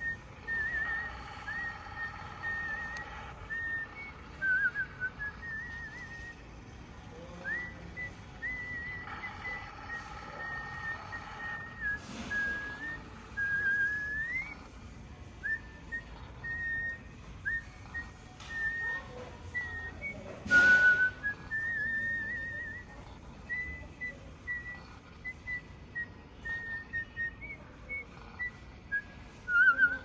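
Animated Sleeping Santa toy's electronic whistle sounding over and over in short, high, wavering notes. Twice a steady chord of held tones sounds for a few seconds, and a short burst of noise about two-thirds through is the loudest moment.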